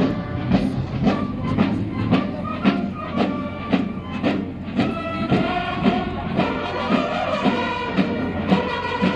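Military band playing a march outdoors, pitched melody over a steady beat of about two pulses a second.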